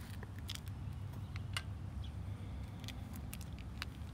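Scattered light scuffs and gritty clicks of worn Sperry Top-Sider leather boat shoes, their soles coming loose, shifting on a concrete sidewalk, over a low steady rumble.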